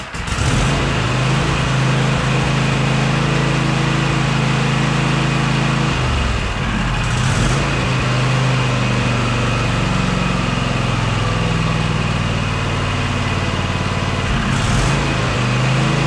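Cub Cadet LGT1054 lawn tractor engine running steadily after starting, with a brief change in its note about six seconds in. It runs now that its clogged carburetor jets have been cleaned and water drained from the fuel, curing a crank-but-no-start fault.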